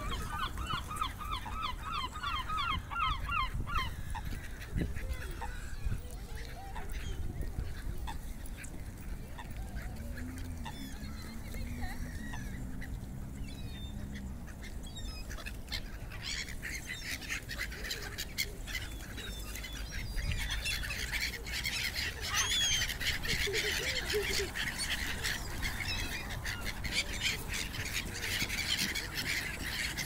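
A flock of water birds, gulls among them, calling: a quick run of repeated calls at the start, then from about halfway on a dense chatter of many birds calling over each other, with a low rumble underneath.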